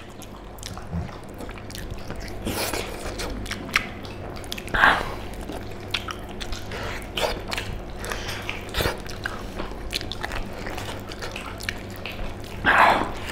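Two people biting and chewing pork leg meat eaten by hand, with wet smacking and many small clicks; a few louder moments, the loudest about five seconds in and near the end.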